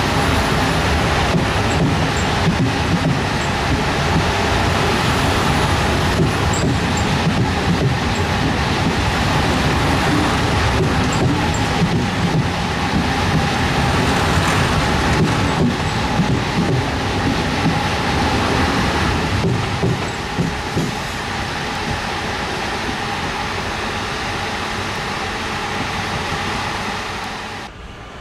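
A train running through a railway station: a steady rumble with wheel clicks over the rail joints and a steady whine. It eases a little about two-thirds of the way in and cuts off sharply just before the end.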